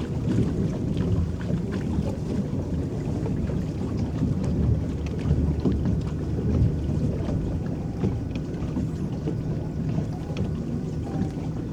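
Electric boat moving across a lake: a steady low rush of water churned by its paddles and washing along the hull, with faint scattered splashes and ticks.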